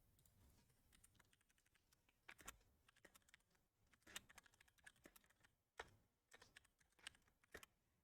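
Faint, irregular clicks and taps, a few at a time, in an otherwise near-silent room.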